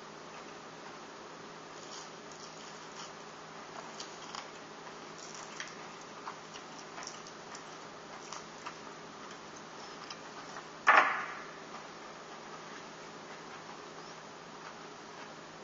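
Faint steady buzzing hum with scattered small clicks and crackles of cooked iguana meat and bones being pulled apart by hand, and one loud knock about eleven seconds in.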